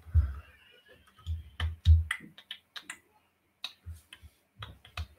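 Irregular clicks and soft knocks of typing on a computer keyboard, a few keystrokes landing with a low thump.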